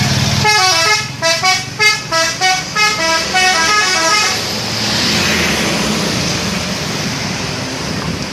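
Bus telolet horn playing a quick tune of short notes that step up and down in pitch, over the bus's running engine. The horn stops after about four seconds, and engine and road noise carry on.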